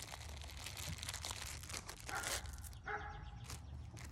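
Crinkling and rustling of a clear plastic sleeve of parchment paper being handled. A dog barks briefly about three seconds in.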